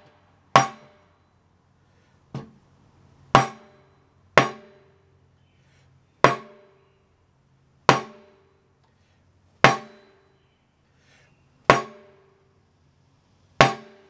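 A long steel rod is rammed end-down onto a wooden block again and again: eight sharp knocks and one lighter one, about every one and a half to two seconds, each followed by a brief metallic ring from the rod.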